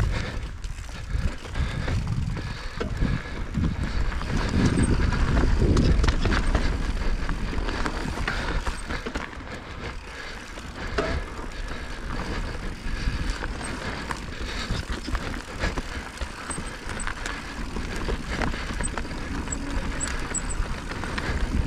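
Mountain bike riding down a loose dirt trail: tyre noise over dirt and stones with rattling clicks from the bike, under a low wind rumble on the camera that is loudest about four to six seconds in.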